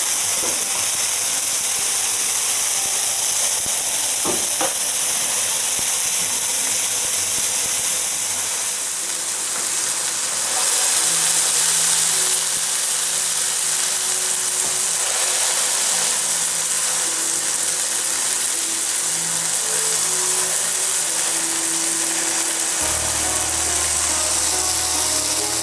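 Sausage patties sizzling steadily in an Oster electric skillet, a dense frying hiss.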